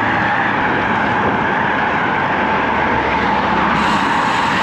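Steady rushing road noise of a road bicycle being ridden: wind on the microphone and tyres on the pavement, holding steady throughout.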